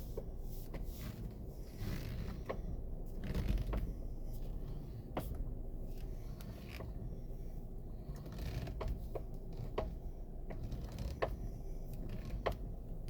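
Irregular sharp clicks and light knocks, roughly one every half second to second, over a steady low rumble, heard as a 2016 Toyota RAV4's steering is worked.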